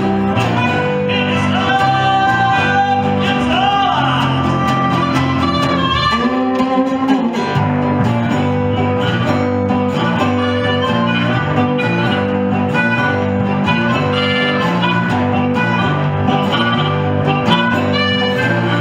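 Small blues band playing together: resonator guitar, electric bass in a steady rhythm, and a harmonica playing a melody with bent, sliding notes.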